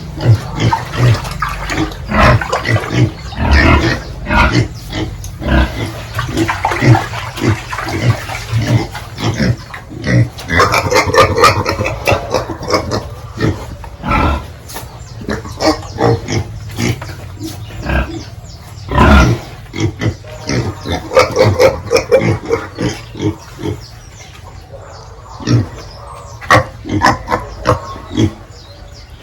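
Pigs grunting in quick, overlapping short calls. Longer, higher squeals come in twice, around a third and around two thirds of the way through.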